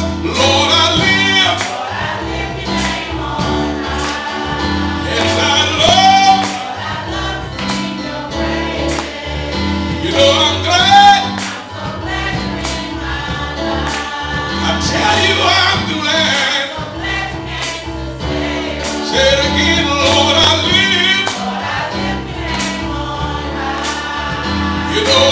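Youth choir singing a gospel song together, backed by a band with bass and a steady drum beat.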